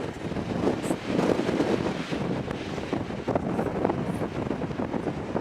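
Strong wind buffeting the camera microphone through its furry windscreen, a steady gusty rumble that rises and falls.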